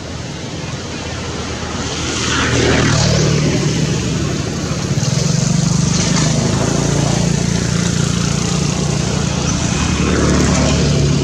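A steady low engine drone under a wash of noise, growing louder about two seconds in and holding, with sweeping whooshes near the start and the end.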